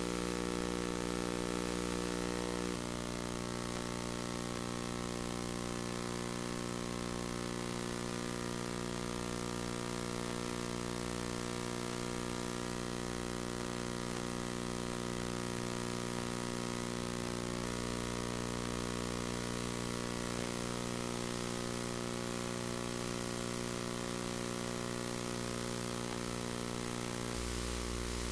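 Steady electrical hum with tape hiss from a silent videotape transfer: a constant buzz of evenly spaced tones, with no recorded sound of its own.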